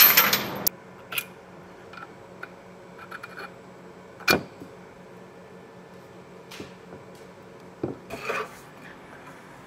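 Metal parts clinking and clicking as a gearbox and shaft assembly is handled and fitted onto a machined plate. A brief loud scraping burst comes at the very start, then scattered light clicks, a sharper knock about four seconds in, and a small cluster of knocks near the end, over a faint steady hum.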